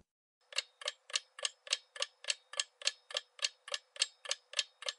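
Clock-ticking sound effect for a quiz's answer countdown: short, sharp, evenly spaced ticks, about three to four a second, starting about half a second in.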